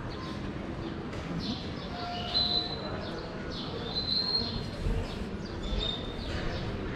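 Small birds chirping over and over, with a few short whistled notes, above a low murmur of people's voices.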